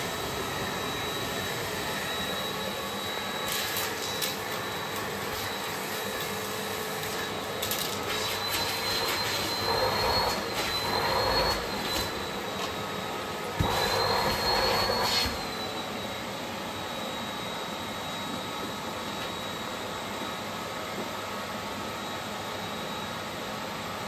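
Bosch BGS21X320 bagless canister vacuum cleaner running steadily with a high motor whine, suction at a crevice nozzle working over a suitcase's fabric lining. Twice, about eight seconds in and again about fourteen seconds in, the suction grows louder and the whine rises a little for a couple of seconds, with a few light knocks earlier on.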